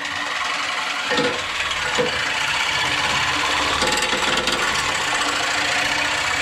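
Corded Tiger reciprocating saw cutting through the steel exhaust pipe of a Polaris RZR 1000 Turbo, a steady loud sawing.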